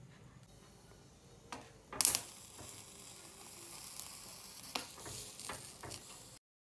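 Skewered corn cobs sizzling on a wire grill rack over a stove. A sharp hiss starts about two seconds in and settles into a steady sizzle with a few light clicks, then cuts off suddenly near the end.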